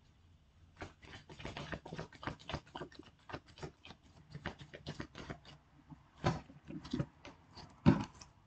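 A tarot deck being shuffled and handled: a quick run of soft card flicks and taps, starting about a second in, with a few louder snaps near the end.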